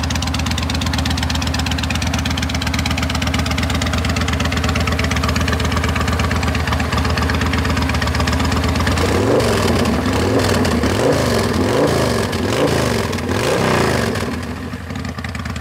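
Yamaha Stryker 1300's V-twin idling through Freedom Performance Sharp Curve Radius exhaust pipes. About nine seconds in it is blipped through several quick revs that rise and fall, then it settles back to idle near the end.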